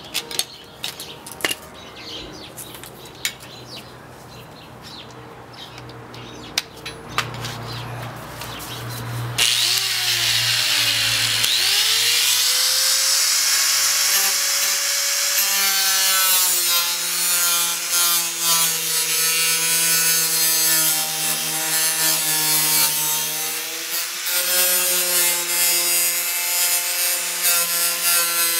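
Angle grinder cutting through a fiberglass hood. Scattered clicks and knocks come first; about nine seconds in the grinder starts, its pitch rising, then runs with a steady high whine that dips briefly and recovers as the wheel bites, stopping right at the end.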